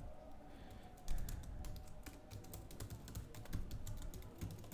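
Computer keyboard typing: a fast, irregular run of faint key clicks, getting busier about a second in.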